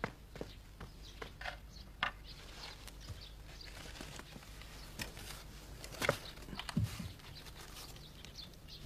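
Scattered light knocks and clicks from wooden furniture and panels being handled during a room search, with a couple of duller thumps about seven seconds in.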